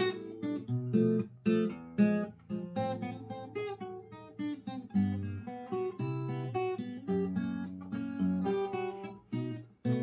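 Taylor GS Mini-e Koa acoustic guitar fingerpicked: a melody of plucked notes over ringing bass notes, with a last chord struck at the very end and left ringing.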